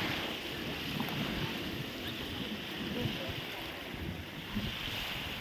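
Wind rumbling unevenly on the microphone over a steady wash of small lake waves.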